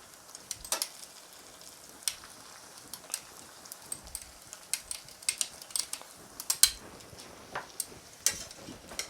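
Pizza dough frying in hot oil in a pan: a faint steady sizzle with irregular crackles and pops, the sharpest about two-thirds of the way through.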